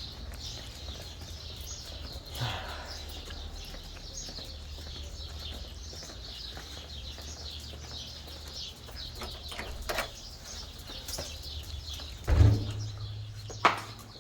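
Small birds chirping over and over above a low steady hum, with a loud thump about twelve seconds in and a sharp knock shortly after.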